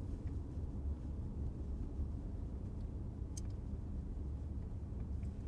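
Low, steady rumble of a car driving slowly, heard from inside the cabin, with a faint click about three and a half seconds in.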